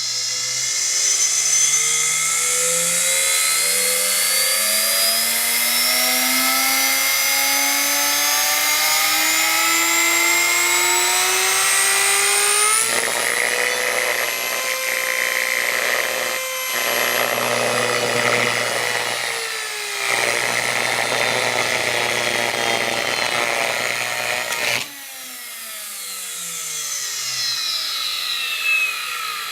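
Hoover vacuum cleaner's brushed electric motor, fed 15 volts, spinning up with a steadily rising whine. About halfway through the pitch levels off and a loud rough hiss joins it as the soft carbon brushes fail. Near the end the power drops away and the whine falls as the motor coasts down.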